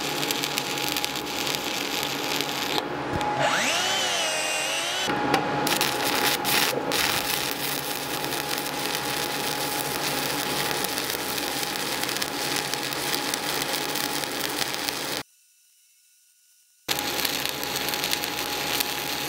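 Stick welding arc from a 7018 electrode crackling and sizzling steadily as a cap bead is run, the arc stable with no arc blow. A brief wavering whistle rises over it about three to five seconds in, and the sound cuts out for under two seconds near the end before the crackle resumes.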